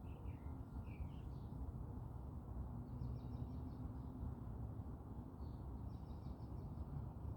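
Small birds chirping: a couple of short falling calls in the first second or so, then quick runs of high notes about three seconds in and again near six seconds, over a steady low background rumble.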